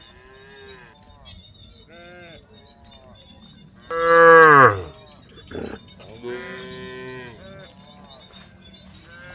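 A herd of cows mooing, one call after another, some faint and some closer. The loudest moo, about four seconds in, falls in pitch as it ends.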